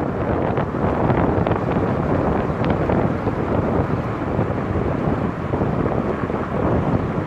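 Wind buffeting the microphone of a roof-mounted camera on a moving car, a steady low rumble with road noise underneath.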